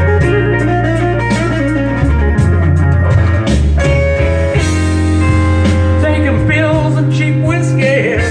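Slow blues instrumental passage between sung lines: guitar fills with bending notes over a steady bass line and drums.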